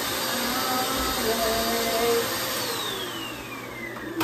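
Bagless upright vacuum cleaner running with its hose wand in use. About two-thirds of the way in it is switched off, and the motor whine falls in pitch as it spins down.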